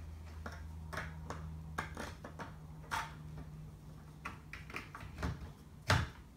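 Clicks and knocks of 3D-printed plastic parts being handled and pushed into place on a printer frame, irregular, with one louder knock near the end.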